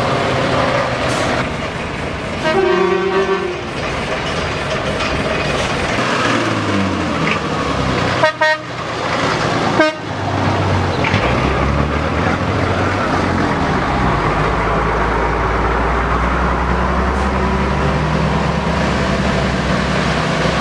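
Classic lorries driving past one after another, their heavy engines running, with a horn sounding for about a second some three seconds in and two short sharp blasts around the middle. A deep engine rumble grows strong in the second half as a truck passes close.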